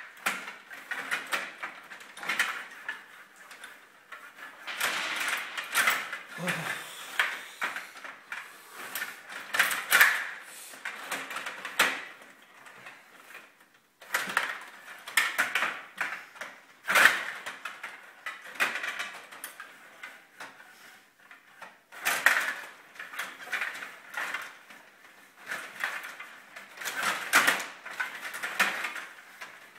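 Stiga rod-hockey table in play: the metal control rods are pushed, pulled and twisted, rattling and clicking in the plastic table, and the puck and plastic players knock against each other and the boards. It comes in busy clusters of clicks with a couple of short lulls.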